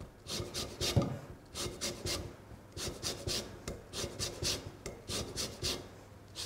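Orange peel rasped across a steel Microplane zester, a quick run of scraping strokes several times a second as the zest is grated into the bowl. One louder knock about a second in.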